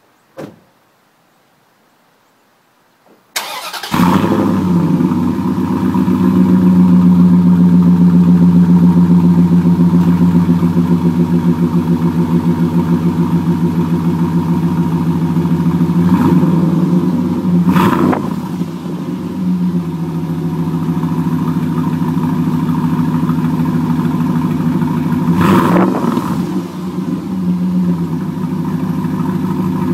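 A click, then a 2003 Dodge Dakota's 4.7 L V8 is cranked and catches about three seconds in, running fast at first and easing into a steady, pulsing idle through an 18-inch Magnaflow three-chamber muffler and tailpipe. The throttle is blipped briefly three times during the idle.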